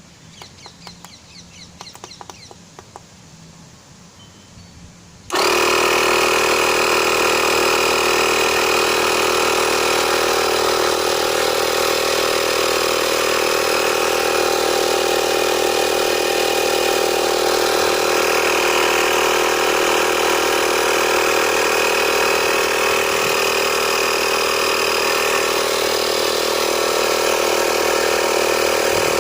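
A Brill's DAC12 12 V portable electric tire inflator switches on about five seconds in and then runs steadily, a loud, even motor-and-piston drone with a few steady whining tones in it. Before it starts there are only a few faint clicks and chirps.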